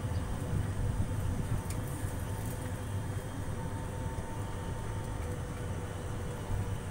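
Open-sided passenger shuttle car moving along a paved road: a steady low rumble of the ride with a faint steady hum above it.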